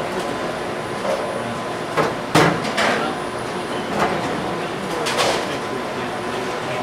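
Bowling alley clatter: sharp knocks and crashes of bowling balls and pins, about five over the few seconds, the loudest a little over two seconds in, over a steady din of the house.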